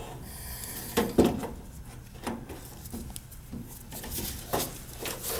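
Scattered light clicks and knocks of hands working on furnace wiring and parts, with a couple of sharper knocks about a second in and a few more toward the middle and end.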